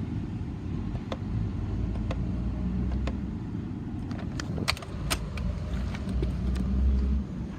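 Low steady rumble with a dozen or so scattered light clicks and taps, the handling sounds of someone moving about the truck; no engine running.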